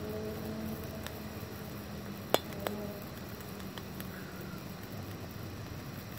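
Hot frying pan on a portable gas camping stove: a steady low hiss with faint sizzling, and a few sharp metallic ticks, the loudest a little over two seconds in with a smaller one just after.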